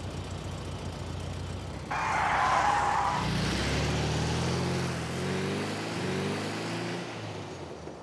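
Cartoon car sound effects: a low engine hum, a short tyre screech about two seconds in, then an engine revving whose pitch slowly falls as it fades away.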